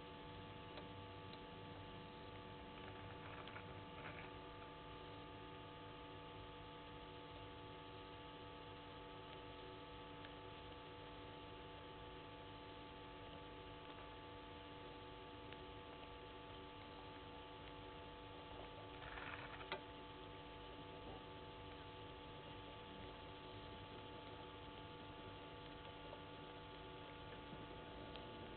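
Faint steady electrical hum and hiss with no clear animal sound. Two brief soft rustling noises break through, one a few seconds in and one about two-thirds of the way through, the second ending in a sharp click.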